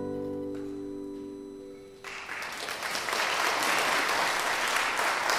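The last held notes of a violin, cello and guitar trio fade away over about two seconds at the end of a slow fiddle air. Then audience applause starts suddenly and grows into steady clapping.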